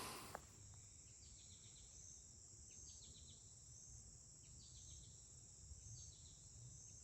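Faint evening insect chorus: a steady high-pitched trill, with a short call of a few quick pulses repeating about every one and a half seconds.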